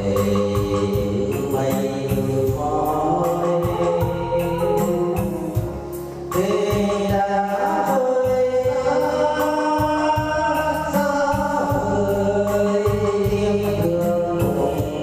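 A Vietnamese song sung with long held notes over steady musical accompaniment.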